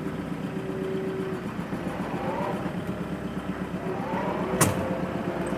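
A motor vehicle's engine running steadily, rising briefly in pitch twice, with a single sharp click near the end.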